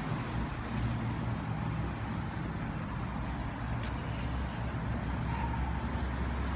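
A motor vehicle's engine running steadily nearby: a low, even rumble.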